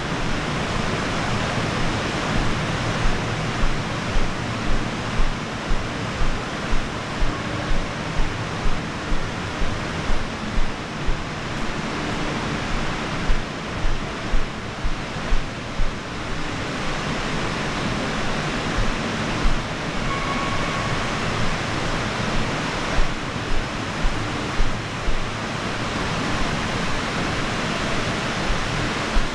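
Steady rushing, water-like hiss of an indoor water park hall, with regular thuds of footsteps climbing stairs, about two a second, that thin out to a few scattered steps after about sixteen seconds.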